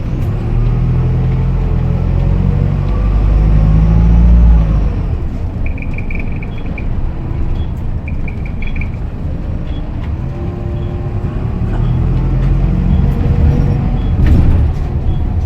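Optare Solo SR bus engine accelerating with its turbo whistling, the engine note rising to a peak about four seconds in, easing off, then climbing again near the end.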